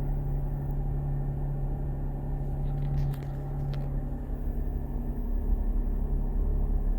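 2019 Chrysler Pacifica Hybrid's 3.6-litre V6 gasoline engine running steadily, heard inside the closed cabin as an even low drone with a held hum. It is very loud for the cabin. The engine has started on its own with the battery still at 56%, triggered by the hood being opened.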